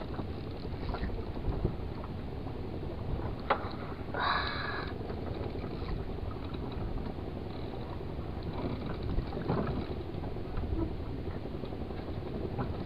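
Steady low rumble of wind and choppy sea around a small fishing boat, with a few faint clicks and a short louder noise about four seconds in.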